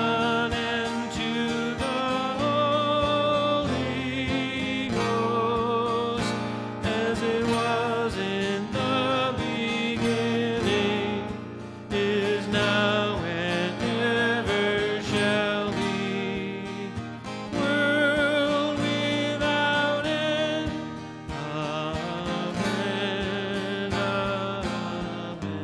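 A hymn sung to acoustic guitar: a man strums an acoustic guitar and sings into a microphone, with the standing congregation singing along from their books.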